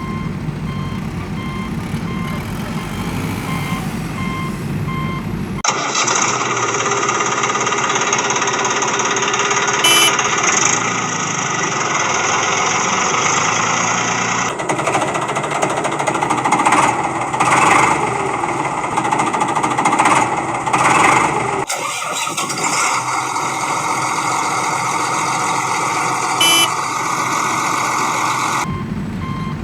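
Heavy construction-vehicle engine running with a reversing alarm beeping at a steady pace, made of separate stretches of machine noise that cut abruptly from one to the next.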